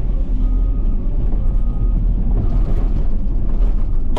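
An engine running steadily with a deep, continuous rumble.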